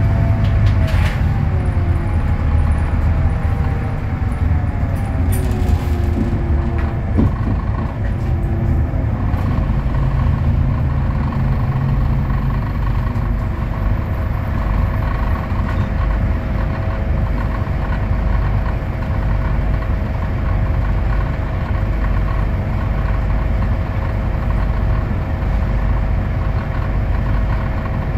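Scania K320UA articulated bus with its five-cylinder Scania DC09 diesel and ZF Ecolife automatic gearbox, heard from on board: a steady low engine rumble, with a whine that glides down in pitch in the first few seconds and a single knock about seven seconds in. From about ten seconds on the rumble holds steady with a constant whine over it.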